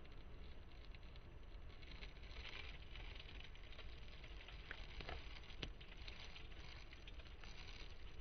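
Faint wet clicking and smacking of a stoat licking and chewing dog food off a metal spoon, with a few sharper clicks about five seconds in, over a steady low rumble.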